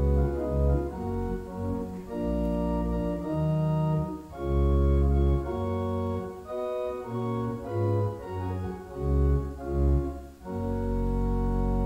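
Church organ playing a hymn tune in full chords that change every half second or so, settling into one long held chord near the end.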